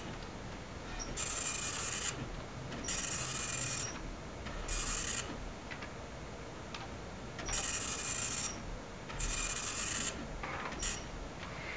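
A machine making repeated rasping passes, each under a second long, at uneven intervals, several ending in a short high whine.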